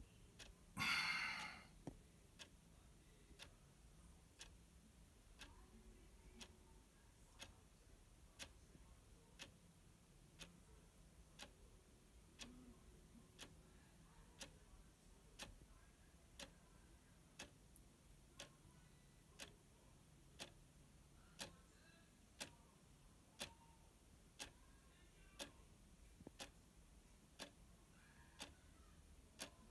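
Quartz clock movement ticking steadily, one sharp tick a second as its stepping motor advances the second hand. A short, louder burst of noise comes about a second in.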